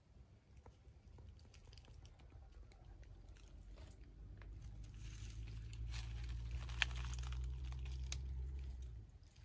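Low wind rumble on the microphone that grows louder from about halfway and drops off near the end, with scattered light crackles and one sharp click in the louder part.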